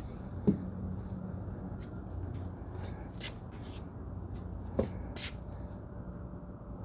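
Rubbing and handling noise on a handheld phone's microphone, with two short knocks, one about half a second in and one near five seconds, over a low steady hum.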